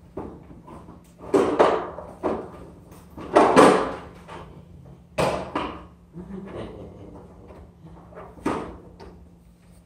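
About five knocks and bangs from someone moving about out of sight, each short and sudden, the loudest about three and a half seconds in and the last near the end.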